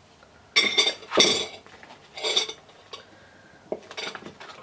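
Cutlery clattering and clinking against dishes, with three louder ringing clatters in the first two and a half seconds and a few lighter taps near the end.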